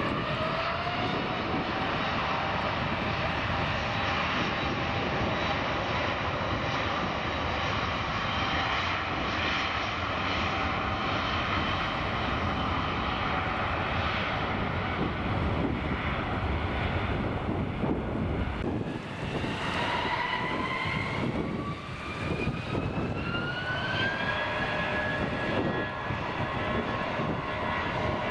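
Jet airliners' turbofan engines on the runway, running loud and steady, with a rising engine whine right at the start and again about two thirds of the way through as the engines spool up.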